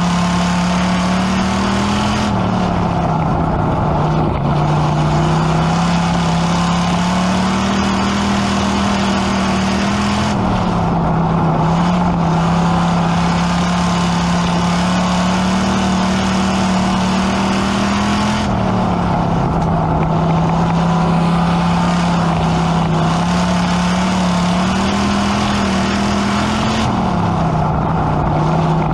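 Pure stock dirt-track race car's engine heard from inside the cockpit at racing speed. Its note drops sharply four times, about every eight seconds, as the driver lifts for each turn of the oval, then climbs slowly again down the straight.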